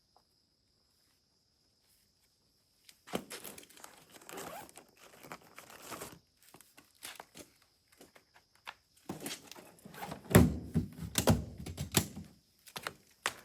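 Near silence for about three seconds, then irregular rustling and crinkling broken by knocks and thuds, the heaviest about ten seconds in.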